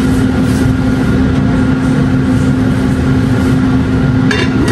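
Kitchen range-hood exhaust fan running with a loud, steady hum. There is a short clink near the end.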